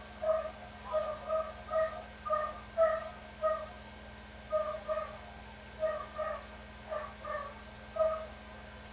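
Short, high-pitched animal cries, repeated two or three a second in irregular runs, with a pause of about a second midway.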